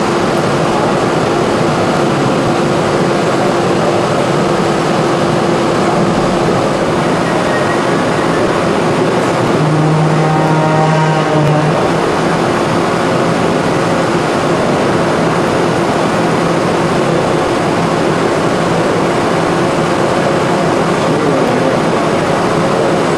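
Steady, loud machinery noise of an automated production line processing electric-motor stators. About ten seconds in, a low hum rises over it for about two seconds.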